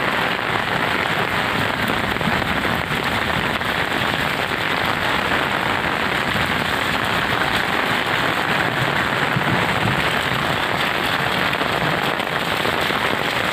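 Heavy monsoon rain pouring down, a dense, steady hiss of drops hitting wet ground.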